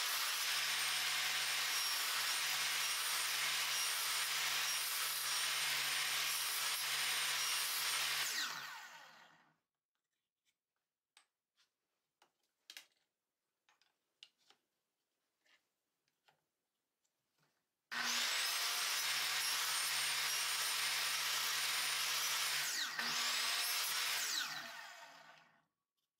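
Ryobi sliding compound miter saw cutting half-lap notches in half-inch pine: the saw runs for about eight seconds and winds down. After a pause filled with light clicks and knocks, it starts again about 18 seconds in, runs for about six seconds and winds down.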